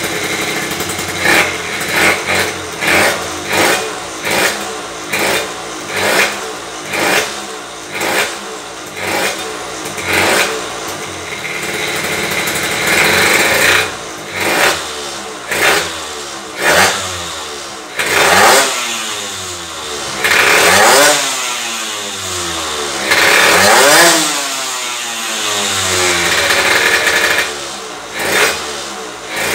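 Piaggio Zip SP scooter's tuned two-stroke engine with an expansion-chamber exhaust, revved on the stand: a string of short throttle blips about one a second, then several longer revs that rise and fall, then quick blips again near the end. The engine is still being run in, and the owner judges its mixture slightly lean.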